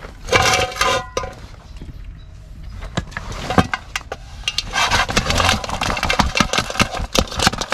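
Mud crabs being tipped out of a container: a rustle near the start, then many sharp clicks and clatters as their shells and claws knock together and on the surface, densest in the last few seconds.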